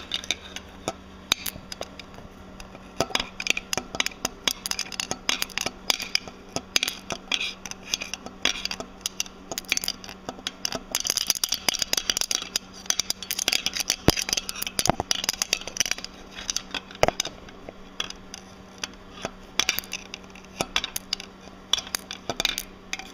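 Steel needle bearings being knocked out of a MerCruiser Bravo 3 lower unit gear case with a rod: irregular metallic tapping and clinking, with loose needle rollers rattling against the steel, and a couple of harder knocks.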